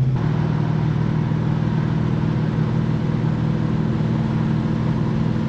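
1969 Plymouth Road Runner's V8 running steadily as the car cruises, heard from inside the cabin, with a low, even engine note and road noise.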